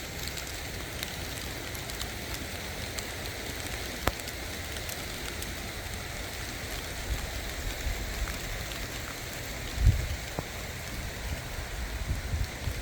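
Steady rain falling, an even hiss with scattered sharp drip ticks, one clear click about four seconds in. A dull low thump comes near the end.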